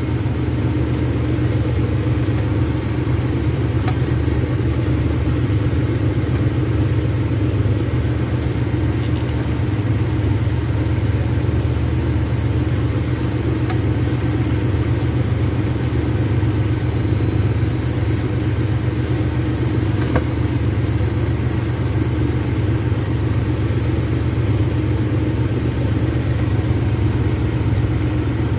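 A machine running steadily to spin an alternator under test, a constant low hum at an even speed.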